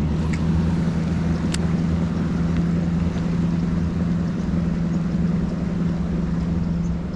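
Bass boat's outboard motor running at a steady cruising speed, an even drone over the rush of water along the hull.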